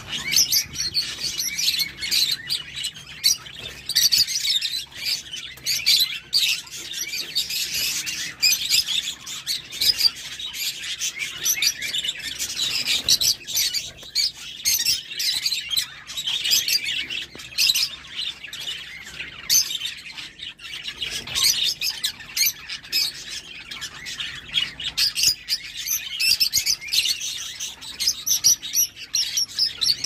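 A flock of caged rosy-faced lovebirds chattering: a constant stream of sharp, high, overlapping chirps.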